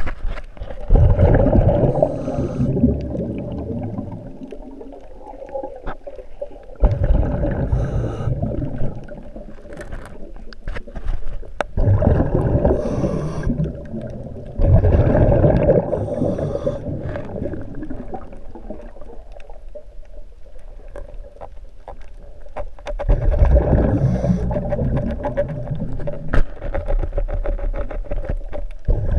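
Underwater sound picked up through a GoPro housing: water rumbling and gurgling around the camera in several surges a few seconds apart, with scattered sharp clicks and scrapes between them.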